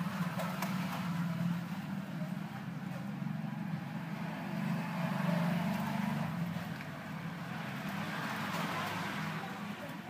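A steady low mechanical hum, like a motor running nearby, goes on throughout, with a fainter, shifting higher sound over it.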